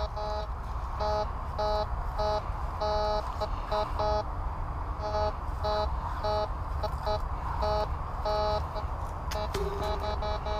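White's metal detector giving repeated short, pitched beeps as the coil is swept back and forth over a buried target, which it reads as deep, about 4 to 6 inches down. Near the end one lower-pitched tone sounds briefly. A steady low rumble runs underneath.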